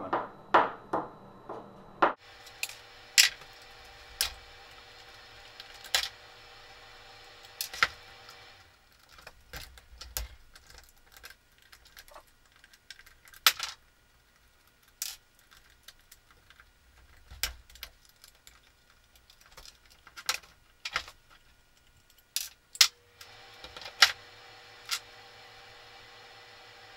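Irregular sharp clicks and clinks of small metal parts and screws being handled and set down while a Wagner paint sprayer's gearbox is taken apart. A steady hum stops about eight seconds in and returns near the end.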